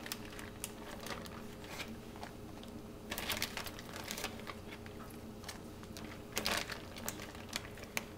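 Soft rustling and light clicks of a banana leaf being handled in a glass baking dish as pieces of marinated mahi-mahi and stalks of lemongrass are laid on it, with two louder bursts of rustling a little after three seconds in and about six and a half seconds in. A faint steady hum runs underneath.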